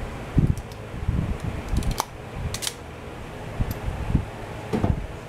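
Small cordless heat gun's fan blowing steadily as heat-shrink is shrunk over a wire connector, with scattered knocks and a few sharp clicks from handling the wires.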